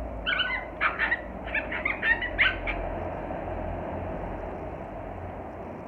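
Puppies yipping and squealing in a quick run of short, high calls over the first three seconds while they squabble over a bone.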